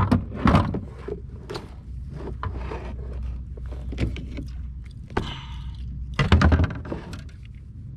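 Knocks and thumps of gear being handled on a fishing kayak, the loudest about half a second in and a cluster around six seconds in, over a steady low rumble.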